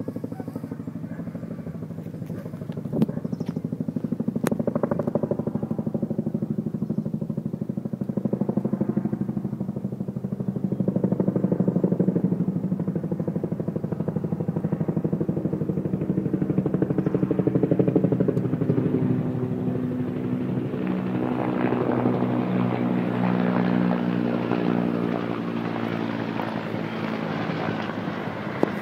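Firefighting helicopter flying overhead, its engine and rotor making a steady fast-pulsing drone that grows louder toward the middle and eases slightly near the end.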